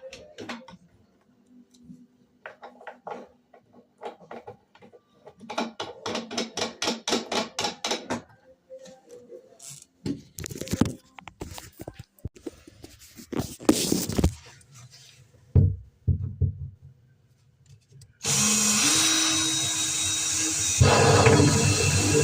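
Power drill used in short bursts with knocks from handling, then running steadily and loudly for the last few seconds, its pitch stepping up once.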